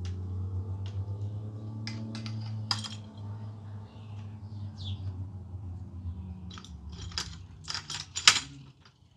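Metal hardware of a ham-radio satellite antenna array clinking and knocking as it is handled and mounted on its mast, in scattered sharp clicks that crowd together near the end, the loudest knock just before they stop. Under them runs a low steady hum that fades out near the end.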